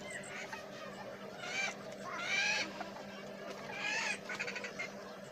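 Three short, pitched animal calls, with a quick rattle of clicks right after the last one.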